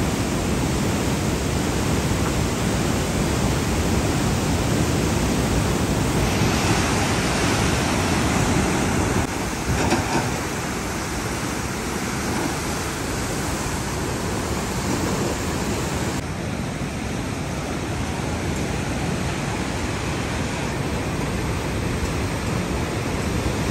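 Water rushing through the open spillway gates of a river barrage: a steady, dense rush of white water whose tone shifts slightly a few times.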